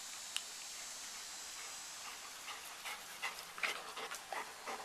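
Golden retrievers stirring close by: a low steady hiss, then scattered faint short sounds through the second half.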